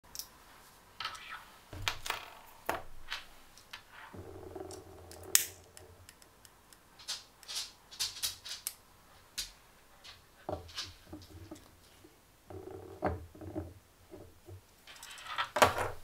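Small objects being handled and set down on a wooden tabletop: a scattered series of light clicks, taps and knocks, with a louder burst of scraping just before the end.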